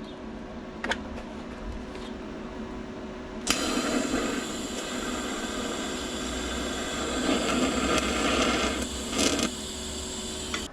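A workshop power tool starts suddenly about a third of the way in and runs steadily with a whirring, machine-like noise. Before it there is only a low hum and a single light click.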